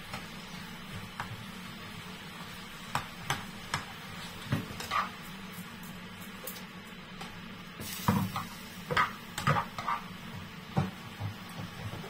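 Spatula stirring vegetables in a frying pan, with scattered knocks and scrapes against the pan over a steady low hum. The knocks bunch together about three seconds in and again from about eight seconds.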